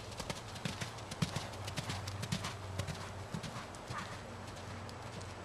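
Hoofbeats of an Appendix (Thoroughbred/Quarter Horse cross) mare moving at speed over dirt arena footing. It is an irregular run of thuds and clicks, thickest in the first three seconds and then thinning.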